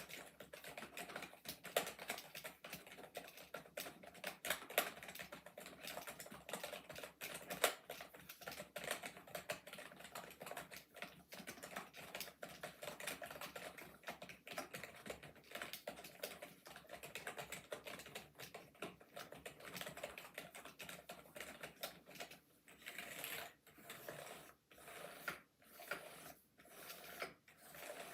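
Rapid, continuous typing on a budget RGB gaming keyboard: a dense clatter of key clicks. Near the end the keystrokes thin out into slower, separate presses.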